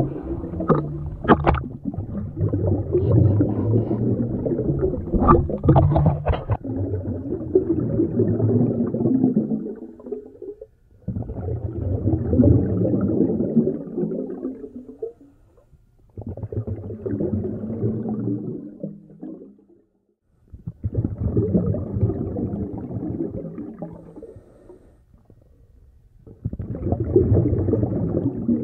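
Water sloshing and gurgling at the sea surface with a few sharp knocks. From about ten seconds in, a scuba diver's exhaled bubbles rumble underwater in regular bursts of three to four seconds, each followed by a short quiet pause as the diver breathes in through the regulator.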